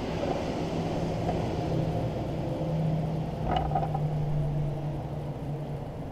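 Plastic cabin-air-filter cover being handled and pressed back into the cowl, with a brief clatter about three and a half seconds in, over a steady low hum.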